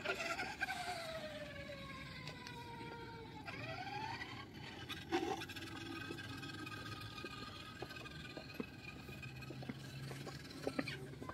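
Electric RC car's motor and gears whining. The pitch falls over the first few seconds as the car slows, rises briefly about three and a half seconds in, then holds nearly steady. There is a sharp knock about five seconds in.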